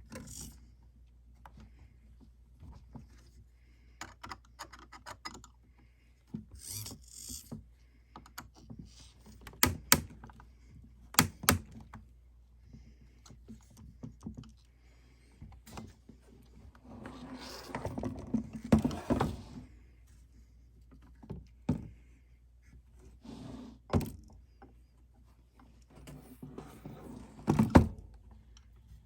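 Scattered clicks and knocks of the head tilt mechanism's parts being handled and its screws tightened by hand, a little at a time on each side, with a longer rasping stretch about two thirds of the way through.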